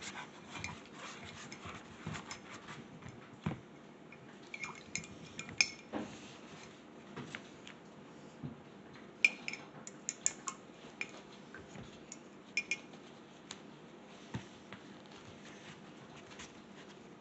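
Paintbrush stirred and knocked around inside a ceramic mug of rinse water, clinking against the mug's sides in scattered, irregular taps, a few of them sharper with a short ring.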